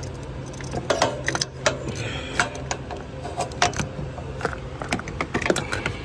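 Scattered metallic clicks and clinks of hand tools and engine parts being handled in a diesel engine bay as the injection pressure regulator (IPR) valve is taken out. A steady low hum runs under them and stops about two seconds in.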